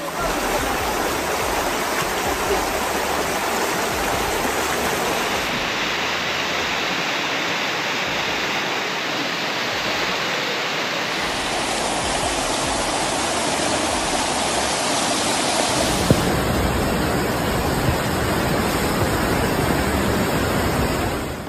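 Fast, muddy floodwater rushing through streets: a steady noise of turbulent water. Its tone changes abruptly at cuts about 5, 11 and 16 seconds in.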